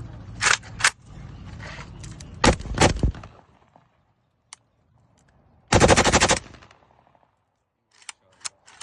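AK-47 rifle being test-fired: a few single shots in the first three seconds, a short automatic burst of under a second about six seconds in, then more single shots near the end.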